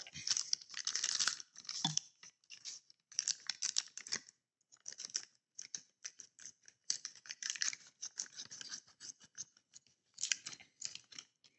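Clear plastic parts bag crinkling in irregular bursts as it is handled and cut open with scissors.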